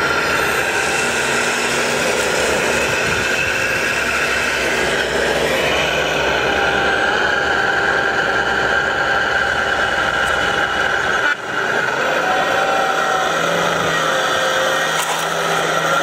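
Radio-controlled scale Liebherr 944 excavator running: a steady mechanical whine from its motors and hydraulics, with the pitch shifting as the boom and tracks move.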